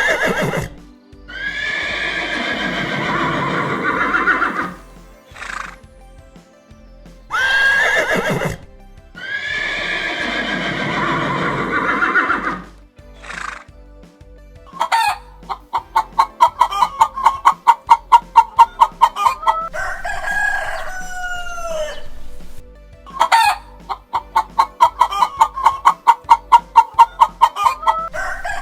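Chickens: a rooster crows twice, then a hen cackles twice, each time a rapid run of clucks ending in a drawn-out falling call.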